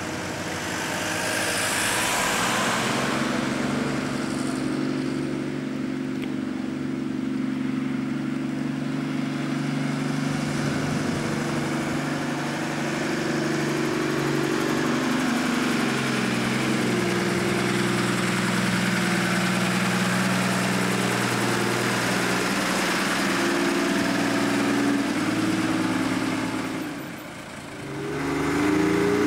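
A 1963 Morris FFK-140 truck's engine running as it drives, its pitch shifting up and down with the road speed. Near the end the sound briefly dips, then the engine rises in pitch as it accelerates.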